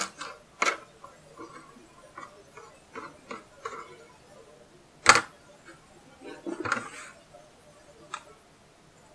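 Small kitchen knife chopping ginger root on a plastic cutting board: scattered light taps and knocks of the blade on the board, with one sharper knock about five seconds in and a short cluster of taps soon after.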